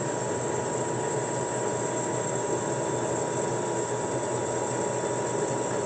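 Doall C916M horizontal band saw running free without cutting. The blade and variable-speed drive make a steady machine noise with a constant whine while the saw head lowers.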